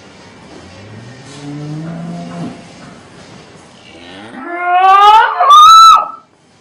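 A cow mooing twice: first a low moo that rises a little, then a much louder, long bellow that climbs steeply to a high pitch and cuts off suddenly.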